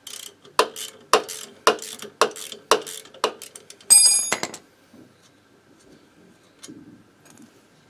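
A wrench working the engine-spring bolt of a moped: about six sharp metallic clicks roughly half a second apart. About four seconds in, a dropped spanner hits the floor with a short bright metallic ring, followed by faint handling noise.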